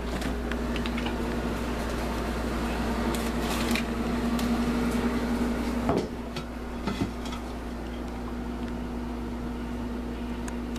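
Steady hum of a kitchen appliance. About six seconds in there is a short clatter, and a second click follows a second later as a ceramic plate used as a lid is handled on a steel pot.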